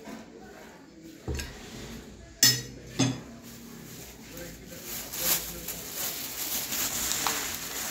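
A butcher's cleaver knocking on a wooden chopping block three times, the loudest knock about two and a half seconds in and another half a second later. After the knocks a hiss of background noise grows louder.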